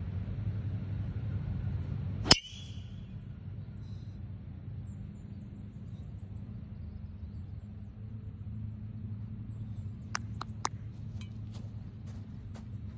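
Golf driver striking a ball off the tee: one sharp crack with a short ringing tail about two seconds in. A steady low rumble runs underneath, and a few faint light clicks come near the end.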